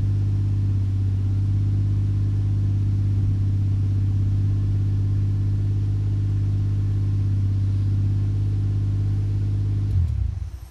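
Toyota 1JZ-GTE straight-six with a single turbo and 5ZIGEN exhaust, running steadily at an even speed. About ten seconds in it is switched off and dies away within a second.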